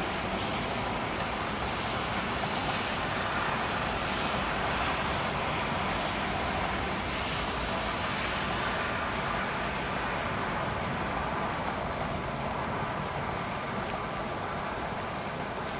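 Storm ambience: a steady rushing of heavy rain and wind, even throughout, with no distinct thunderclaps.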